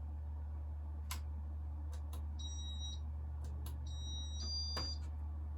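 Casablanca ceiling fan control beeping as it is set to stop the fan's demo mode: a few short high beeps in the second half, among scattered clicks, over a steady low hum.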